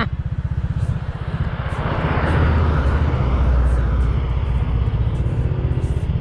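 Yamaha Crypton T110 small single-cylinder four-stroke motorcycle engine running steadily under way, a fast even pulsing. A rush of wind or road noise swells in the middle and eases off again.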